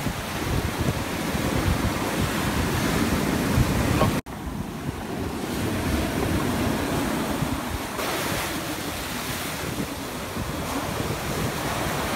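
Ocean surf breaking and washing up the beach, with wind buffeting the microphone; the sound breaks off for an instant about four seconds in and carries on.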